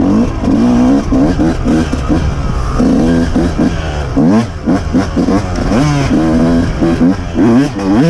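Dirt bike engine revving up and falling back over and over as the throttle is opened and closed, a fresh surge every half second to a second.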